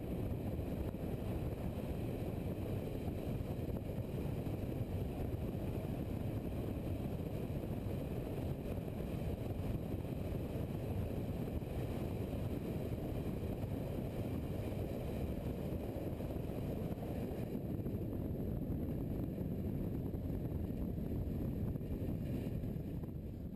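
Steady rumble of wind rushing past a motorcycle-mounted camera, mixed with the drone of the motorcycle at cruising speed on an open road. It begins to fade out at the very end.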